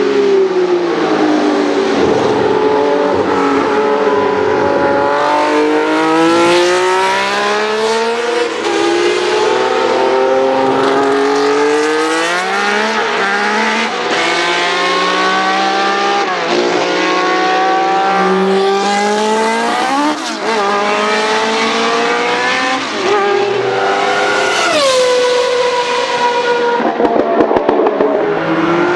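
Historic Formula 1 car engines running at high revs. The pitch climbs through each gear and drops sharply at every upshift, again and again, as the cars lap the circuit.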